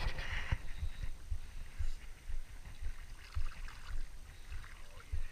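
Water lapping against the hull of a small boat, with irregular low thumps and a faint watery trickle.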